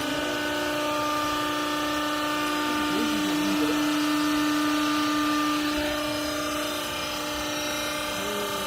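Hydraulic baling press running: its electric motor and hydraulic pump give a steady whine. The strongest tone drops out about six seconds in, and the machine runs on a little more quietly.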